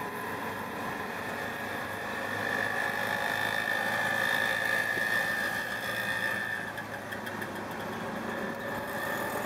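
Auto-rickshaw's small engine running and road noise heard from inside the open cab while driving in traffic, with a steady high tone over it for about four seconds in the middle.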